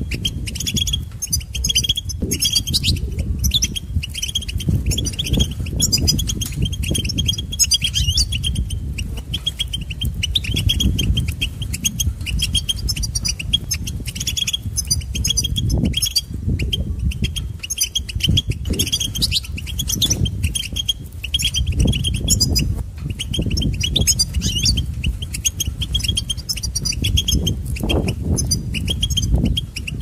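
European goldfinch twittering: a steady run of rapid, high chirps and trills. A heavy, uneven low rumble runs underneath.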